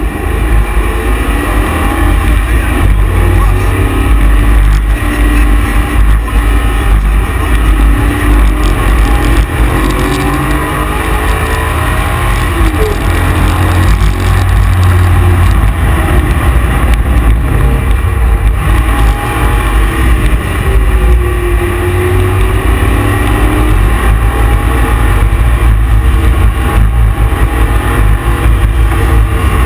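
Ford Escort Cosworth's swapped-in 5.7-litre LS1 V8 running hard on track, heard from inside the cabin. The engine note rises and falls with throttle and gear changes over a heavy low rumble, and it stays loud throughout.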